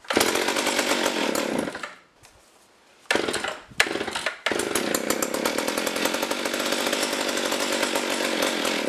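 McCulloch ProMac 610 two-stroke chainsaw being pull-started with the choke pushed in: it fires and runs for under two seconds and dies. On the next pull it catches, sputters briefly, then settles into a steady run.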